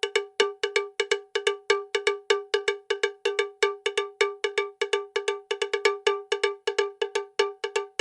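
Rapid, uneven run of sharp metallic percussion strikes, all at the same pitch and cowbell-like, about four to six a second, forming the outro track.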